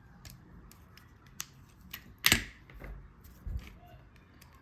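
Plastic LEGO pieces clicking and tapping as they are handled and pressed together. Scattered sharp clicks, the loudest a little past halfway.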